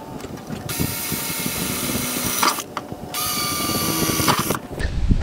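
Cordless drill running in two bursts of about a second and a half each, with a short pause between, drilling into the car's steel firewall.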